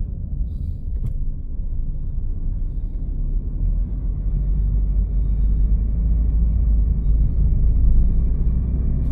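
Steady low rumble of a car driving along a road, with a faint click about a second in.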